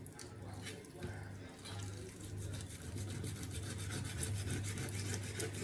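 Large kitchen knife cutting through raw chicken on a plastic cutting board: a few sharp clicks early, then a quick run of small scraping ticks in the second half, over a steady low hum.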